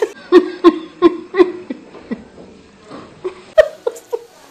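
A woman laughing hard in a string of short ha-ha laughs, about three a second, for about two seconds. A few more laughs come near the end.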